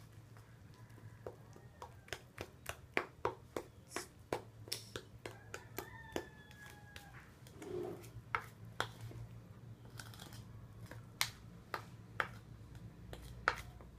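A spoon clicking and scraping against a plastic bowl while pancake batter is stirred, with a regular run of about three clicks a second early in the stirring, then scattered clicks, over a steady low hum.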